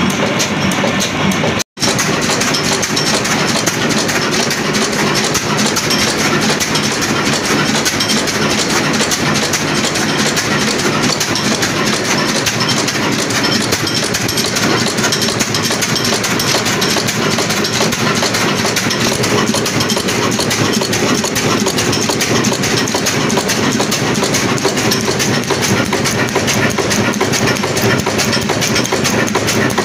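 Large Ruston Hornsby-type horizontal diesel engine running steadily, with a loud, fast, even clatter. The sound drops out for an instant about two seconds in.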